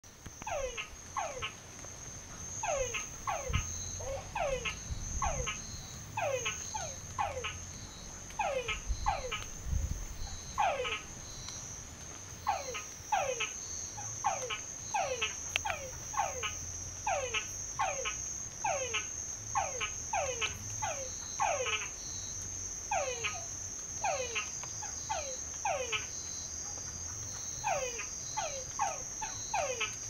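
Frogs calling from a well, a run of short notes that each fall in pitch, repeating about once or twice a second with some overlapping. A steady high insect trill runs underneath.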